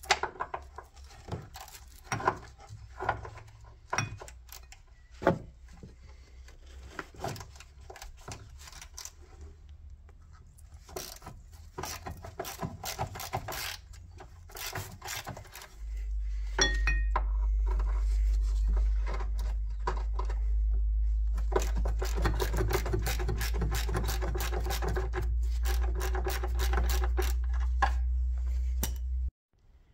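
Clicks, knocks and scrapes of a socket wrench working the rear shock absorber's mounting bolts loose. From about halfway on, a louder steady low rumble with a hiss over it runs until it cuts off just before the end.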